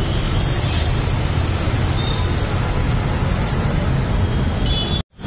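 Steady street noise: a low traffic rumble with faint voices in the background. It cuts out briefly near the end.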